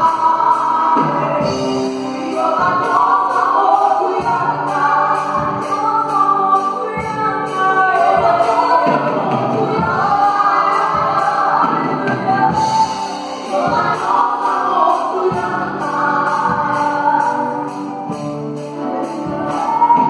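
Live gospel worship music: several singers in harmony, sung in Lingala, backed by a keyboard, electric guitar and drums keeping a steady beat.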